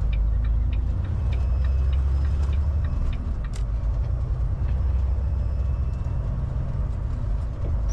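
Semi-truck engine running with a steady low drone, heard from inside the cab, with scattered light clicks.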